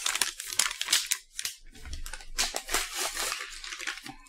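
Wax-coated paper snack box being handled and opened: a quick run of crinkling, rustling and tearing.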